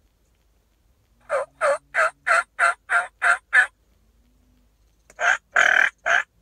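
A hunter's turkey call imitating a hen turkey: a run of eight evenly spaced yelps, about three a second, then after a pause of a second and a half a short burst of three or four louder, raspier notes.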